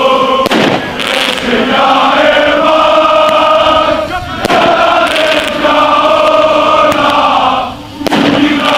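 A large crowd of football ultras chanting in unison, a sustained sung chant that breaks off and starts again a few times. Several sharp bangs cut through it, about a second in, around four to five seconds in, and near the end.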